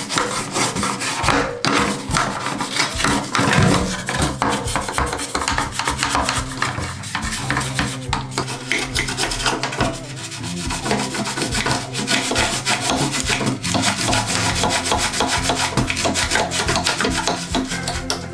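Vigorous scrubbing: rapid back-and-forth rubbing strokes against a hard surface, with a short let-up about ten seconds in.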